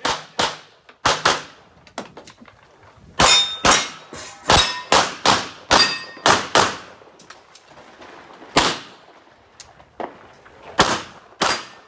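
A string of pistol shots from a production-division handgun, mostly fired in quick pairs, with short pauses between groups. Steel targets ring faintly after some of the hits.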